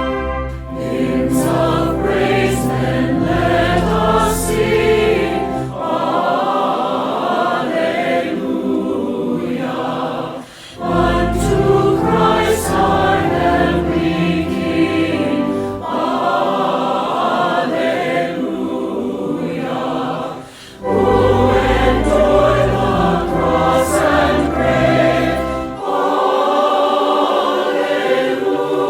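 Choir singing in phrases of several seconds with brief pauses between them. A deep instrumental bass sounds under some of the phrases.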